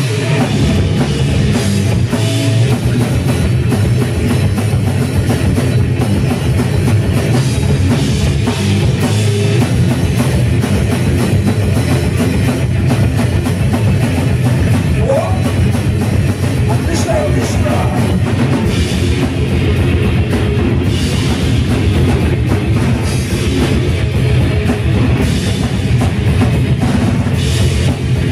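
Live death metal band playing: loud distorted electric guitars over a drum kit with a heavy bass drum, continuous and dense throughout.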